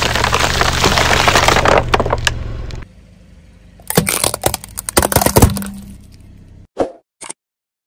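Car tyre crushing plastic soda bottles filled with jelly: a dense crackling and crunching of plastic for the first three seconds. About four seconds in comes a run of sharp cracks as the tyre crushes round plastic slime jars, then two brief snaps near the end.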